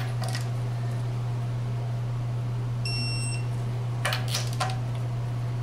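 Digital torque wrench giving one short high beep about three seconds in, signalling that the lug nut has reached its 80 ft-lb target torque, followed a second later by a few clicks of the wrench and socket on the wheel. A steady low hum runs underneath.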